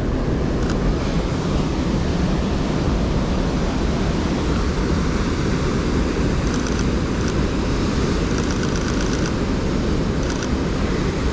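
Heavy surf breaking on a rocky shore, with wind buffeting the microphone. Several short bursts of rapid camera shutter clicks come through near the middle and end, from a Sony A7R III firing in burst mode.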